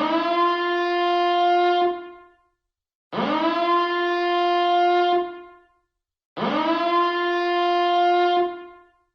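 Nuclear power plant reactor alarm siren sounding three blasts, about three seconds apart. Each blast rises quickly in pitch, holds a steady buzzy horn tone for about two seconds, then dies away before the next.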